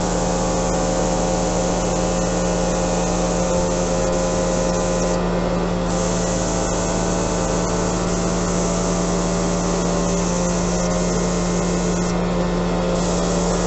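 Compressed-air paint spray gun hissing as it sprays paint, over a steady motor hum. The hiss breaks off briefly about five seconds in and again near the end.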